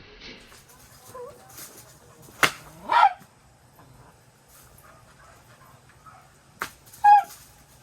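Two short, high animal calls, one about three seconds in and one near the end, each coming just after a sharp click.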